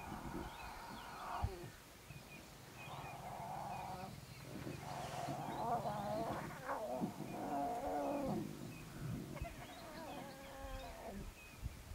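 Lion cubs growling at each other as they jostle to suckle from the lioness, in about five drawn-out growls with short gaps between them.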